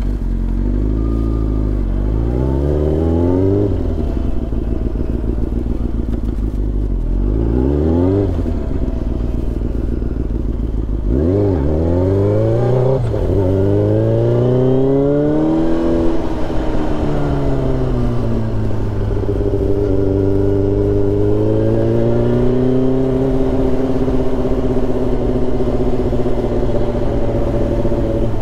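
Sport motorcycle engine heard from the rider's seat, pulling away and accelerating in several rising sweeps with drops in pitch between them as it shifts up, then holding a steady cruise for the second half with small rises and falls in revs.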